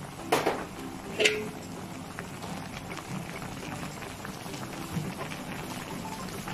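Zongzi filling simmering in a pot of shiitake-soaking water, a steady bubbling. Two sharp knocks come near the start, the second with a brief metallic ring.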